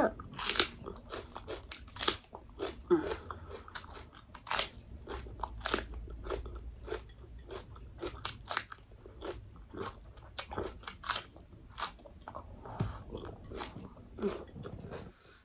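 A person chewing crisp fried fish, with a long run of sharp, irregular crunches a few times a second.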